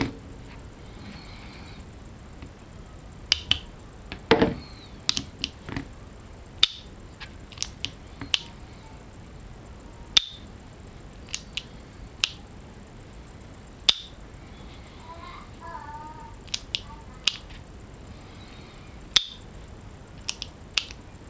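Sharp, irregular clicks and taps of the KJW KC-02 trigger mechanism being handled and reassembled by hand: small parts of the trigger housing knocking and snapping into place, a dozen or so separate clicks with pauses between.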